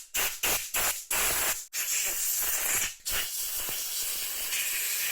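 Compressed air blowing water off a freshly washed phone shell part to dry it. It comes as several short puffs at first, then as longer hissing blows of one to two seconds.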